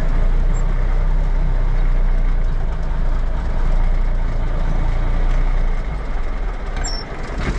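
Kenworth log truck's diesel engine running at low speed as the loaded truck pulls in to park, a steady low rumble that eases off near the end.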